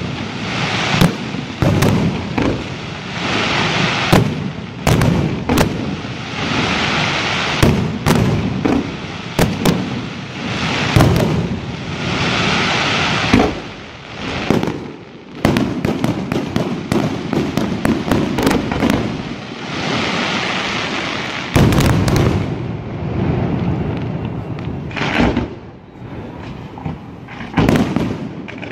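Fireworks display: aerial shells bursting with many sharp bangs and stretches of dense crackling, with a quick run of reports about halfway through.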